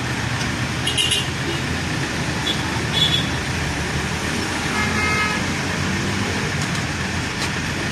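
Steady rumble of an idling truck engine and passing street traffic. Short metallic clicks come about one and three seconds in, and a brief car-horn toot about five seconds in.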